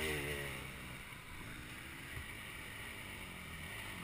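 Off-road dirt bike engines running at low revs on a forest trail; one engine revs up and drops back right at the start, then they run on quietly.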